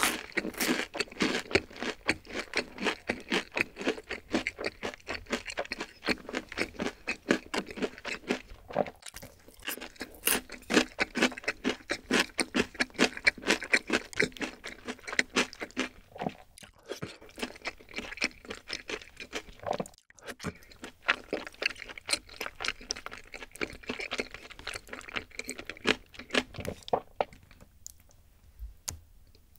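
Close-miked chewing of a mouthful of food: rapid, wet mouth clicks and crackles with brief pauses. The sound goes quiet near the end.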